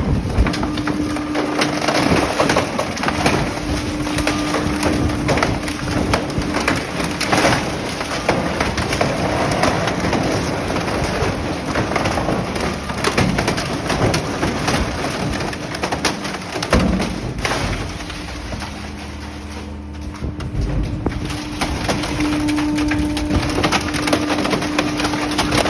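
Car crusher flattening a Ford Focus: a dense run of cracking, snapping and creaking as the body, glass and plastic give way, over the steady hum of the crusher's machinery. About 17 seconds in the hum drops away and it goes quieter for a few seconds, then the hum comes back.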